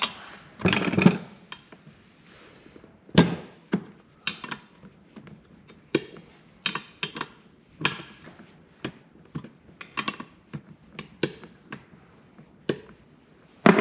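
Hand tools clinking and knocking on the metal parts of a table saw being taken apart, with irregular sharp clicks about every half second and a few heavier knocks.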